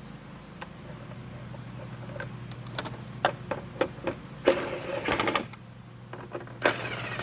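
Small tools at work refastening hardware on a Jeep Cherokee XJ part: scattered clicks and knocks, then two bursts of rapid, typewriter-like clicking about a second long, one near the middle and one near the end, over a steady low hum.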